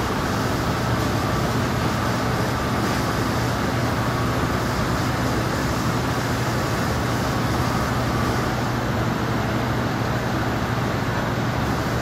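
Steady low hum with an even hiss from shop machinery or ventilation, unchanging throughout; the hand-turned rotisserie makes no separate sound above it.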